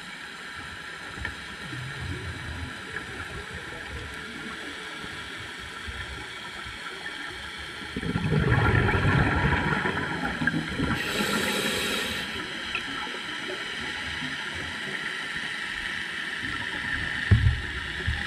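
Underwater sound as heard by a scuba diver: a steady background hiss, then about eight seconds in a loud rush of exhaled bubbles from the diver's regulator lasting about four seconds, with a brighter hiss near its end. Another short burst of bubbles comes near the end.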